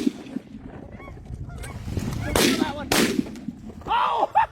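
Geese honking over the decoys, with two shotgun shots about half a second apart midway through; the honking grows louder near the end.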